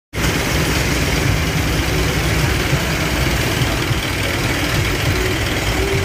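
Engines of small pickup trucks idling and creeping along in slow traffic: a steady, loud, low running sound with no pauses.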